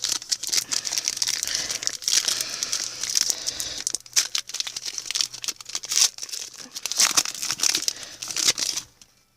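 Plastic wrapper of a baseball card pack being torn open and crinkled, with a dense crackle that stops abruptly near the end.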